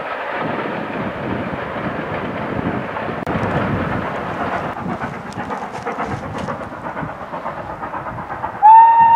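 Steam locomotives working trains, heard from afar as a steady rushing exhaust, with a break a few seconds in. Near the end, a steam locomotive's whistle sounds a loud, steady blast.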